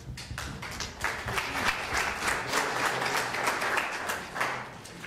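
Audience applauding: many people clapping, building up about a second in and tailing off near the end.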